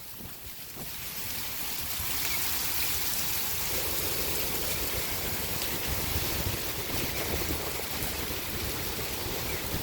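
Typhoon wind: a steady rushing noise with low rumbling buffets on the microphone. It builds over the first two seconds and then holds.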